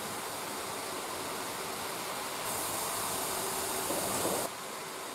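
Gas torch flame hissing steadily while heating a steel hex key for heat treating. About two and a half seconds in, a louder, higher hiss joins it and cuts off suddenly about two seconds later.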